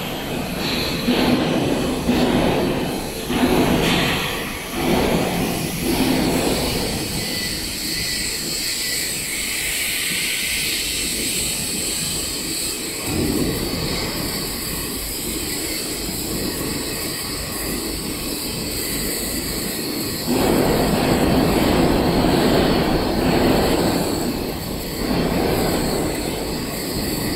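Steady workshop machinery noise, with uneven swells in the first few seconds and a louder stretch of noise starting about two-thirds of the way through.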